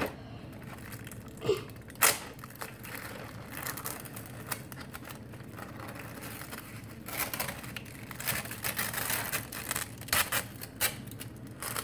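Thin plastic film being peeled off a frozen-meal tray and crinkled, with a few sharp clicks and taps of the plastic tray and its cardboard box. The crinkling is busiest in the last few seconds.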